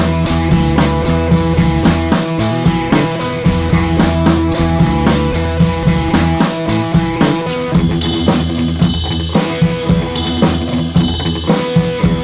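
Background music with a steady drum-kit beat over sustained instrumental tones; the arrangement changes about two-thirds of the way through.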